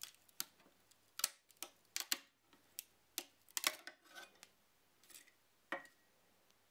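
Metal scraper working under a PLA print on a 3D printer's metal build plate: a string of short sharp clicks and scrapes as the print is pried loose, thinning out after about four seconds.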